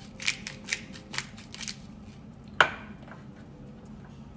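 Hand-twisted black pepper grinder cracking peppercorns: four short grinding twists, about two a second, in the first two seconds. Then one loud sharp knock a little over halfway through.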